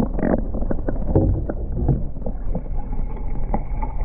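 Water sloshing and splashing around a kayak, with scattered small knocks and splashes.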